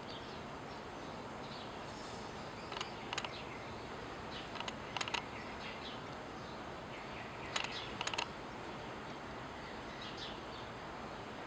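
Nikkor 24-70mm f/2.8 lens's autofocus motor clicking in several short clusters as it refocuses, picked up by the Nikon D7000's built-in microphone over a steady hiss.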